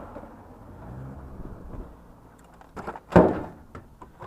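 Hard objects being shifted and set down, with a few small knocks and one loud clunk about three seconds in.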